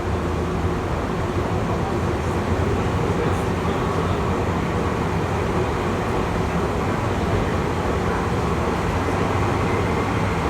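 Tokyu 8500 series electric commuter train heard from inside the car while running: a steady rumble of wheels on rail and running gear with a low hum underneath.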